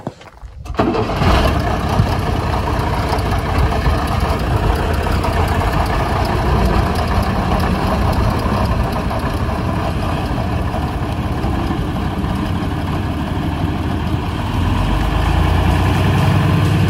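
Praga V3S truck's air-cooled six-cylinder diesel starting about a second in, then running steadily, growing louder near the end as the loaded truck pulls away.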